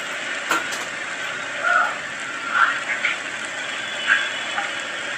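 Steady sizzling hiss of a sugary nut mixture cooking in a hot pan, with a few brief louder blips over it.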